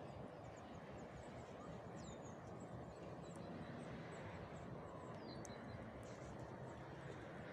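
Faint outdoor ambience: a steady low rumble of wind or distant traffic, with many short, high bird chirps scattered throughout.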